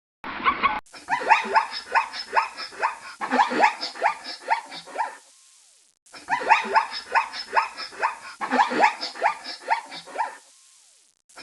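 Dog-like animal barking and yelping in a rapid run of short, sharp calls, each dropping in pitch. The run lasts about four seconds, stops briefly, then comes again.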